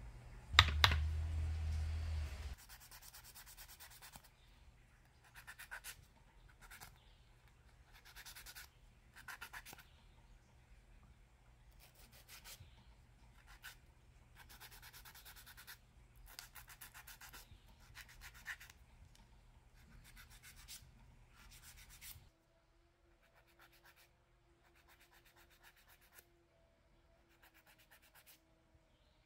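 Hand nail file rasping against polygel nail extensions in short bursts of rapid back-and-forth strokes with pauses between, fainter over the last several seconds. A loud knock near the start is followed by a low rumble for about two seconds.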